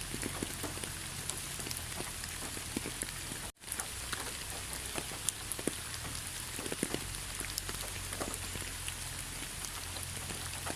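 Steady rain falling, a constant hiss with many individual drops ticking sharply on surfaces. The sound cuts out completely for a split second about three and a half seconds in, then resumes.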